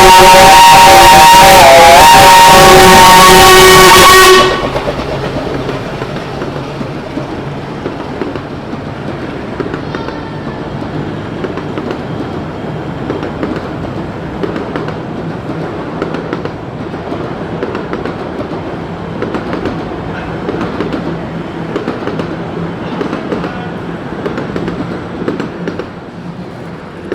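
A miniature 15-inch-gauge steam locomotive's whistle sounds very loud and continuous for about four and a half seconds, a chord of several tones that wavers briefly partway through, then cuts off suddenly. The train's steady running noise follows for the rest of the time.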